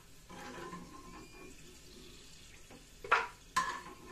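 Metal spoon stirring and scraping through a frying pan of hot olive oil as fried almonds and garlic are lifted out, with a faint frying sizzle. A little past three seconds in, the spoon clinks sharply twice against the pan, half a second apart, each with a brief ring.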